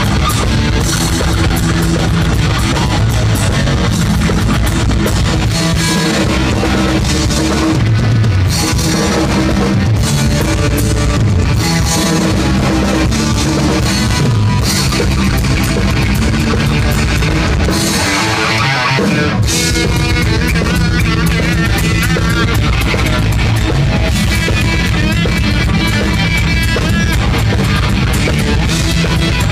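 Live heavy metal band playing loud: electric guitar, bass guitar and drum kit together. About 18 seconds in the bass and drums drop out for a moment, leaving the guitar, before the full band comes back in.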